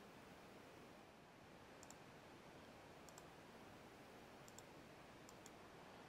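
Near silence with four faint computer-mouse clicks, each a quick double tick, spread about a second apart.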